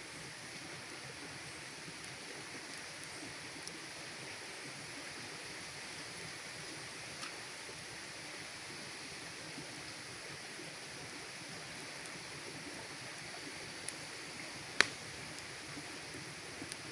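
Campfire burning with a steady hiss and a few scattered sharp crackles from the wood, one much louder pop near the end.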